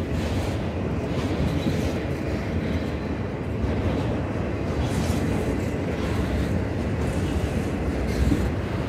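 Freight train of autorack cars rolling past close by: a steady, low rumble of steel wheels on rail and car bodies.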